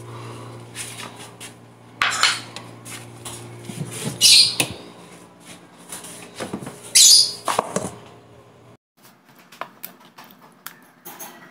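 Kitchen food-handling noises: loud crinkling bursts from the plastic bag of raw chicken and clatters of a metal bowl over a steady low hum from the open refrigerator. After a sudden cut, quieter light clicks of a knife on a plastic cutting board.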